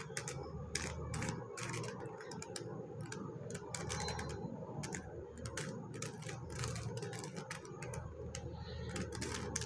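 A stickerless plastic 3x3 puzzle cube is turned quickly by hand, its layers clicking and clacking as they snap round, several irregular clicks a second.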